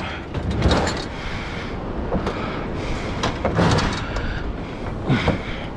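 Irregular metal scrapes and clunks from a heavy scrap stove being shifted, over a low steady rumble.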